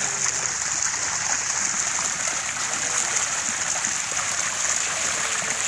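Steady, dense splashing of water as a crowd of milkfish thrashes in a seine net drawn through a shallow pond.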